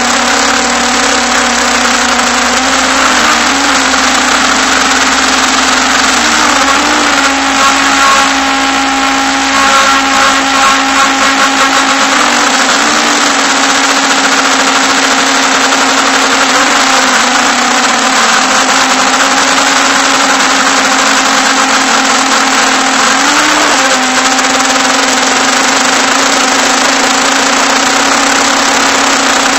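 MJX Bugs 5W quadcopter's brushless motors and propellers in flight, heard close up from a camera carried on the drone: a loud, steady whine over a rushing hiss. The pitch wobbles briefly now and then as the throttle shifts.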